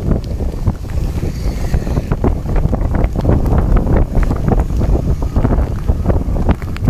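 Wind buffeting the microphone outdoors in the rain: a heavy low rumble broken by many short, sharp taps.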